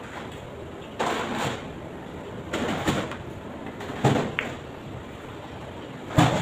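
A carom billiards shot: the cue strikes, then the balls click against each other and the cushions. There are several sharp clicks a second or two apart, the loudest near the end.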